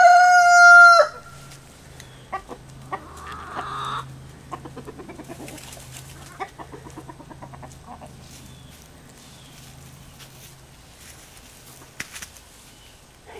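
Rooster crowing loudly, its held final note cutting off about a second in; soft clucking from the flock follows.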